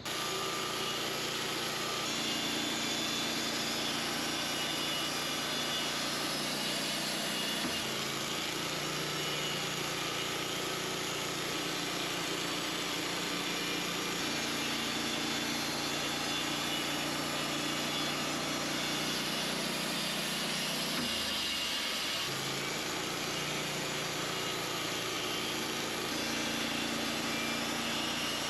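An engine on the sawmill equipment running steadily, its pitch stepping down and back up a few times as the load on it changes.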